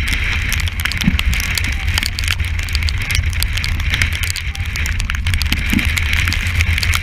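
Gale-force wind buffeting the camera's microphone in a steady, heavy rumble over the rush of a breaking sea. Spray striking the camera housing adds many sharp crackles and taps throughout.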